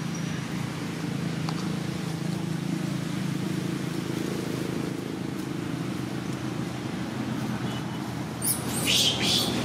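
A steady low engine drone runs throughout. Near the end comes a short, harsh, high-pitched burst.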